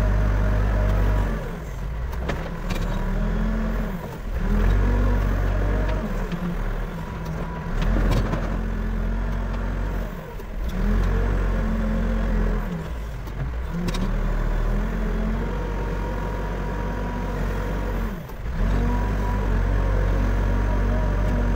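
Backhoe loader's diesel engine running under load, its pitch rising and falling every few seconds as the hydraulics work, with a few sharp knocks.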